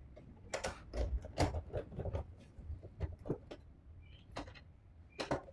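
Door knob hardware clicking and knocking irregularly as the parts are handled and fitted into the door, with the loudest knock near the end.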